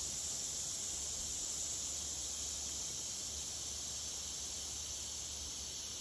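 Steady high-pitched chorus of calling animals, which the uploader takes for tree frogs singing their rain songs, over the hiss of a breeze through the hardwood trees. Wind rumbles low on the microphone.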